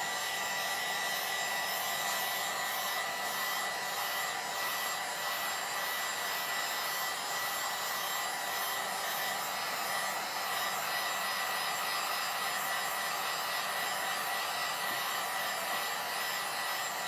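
Handheld hair dryer running steadily, a continuous blowing rush with a thin high whine, used to dry decoupage glue on a wooden shelf.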